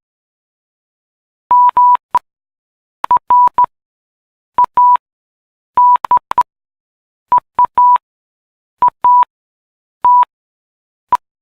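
Morse code sent as a single steady beep in short and long pulses (dots and dashes), grouped into letters with pauses of about a second between the groups.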